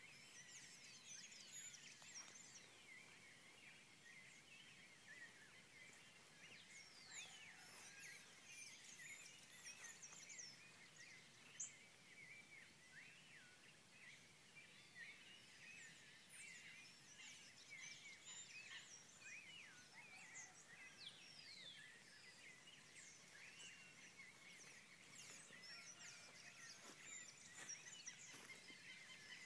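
Faint dawn chorus: many birds chirping and whistling over one another without pause.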